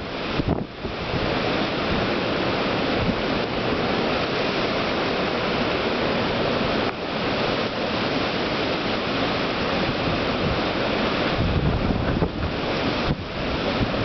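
Typhoon wind and heavy rain: a loud, continuous rushing noise, with a strong gust buffeting the microphone about eleven to thirteen seconds in.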